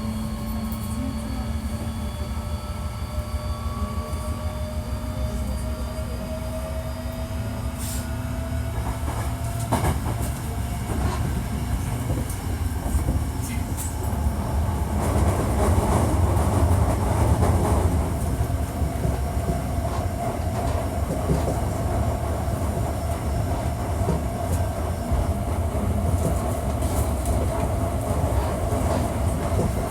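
Running noise inside a Hankyu 1300 series electric train car under way: a steady rumble of wheels on rail with a few sharp clicks, and a motor whine that rises slowly in pitch and then holds. This is a car singled out for an abnormal running noise.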